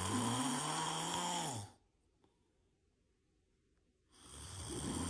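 A person snoring. One long snore with a low buzz that rises and then falls ends under two seconds in; after a quiet pause, the next snore begins about a second before the end.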